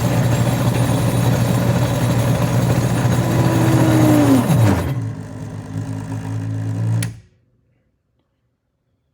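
OTC Judge 2 alternator tester's electric drive motor spinning a bad Corvette alternator through its belt, then slowing with a falling whine to a stop about four and a half seconds in. A loud electrical hum carries on until a click about seven seconds in cuts everything off as the breaker trips. The alternator is dragging the tester down hard enough to pull line voltage below 90 volts.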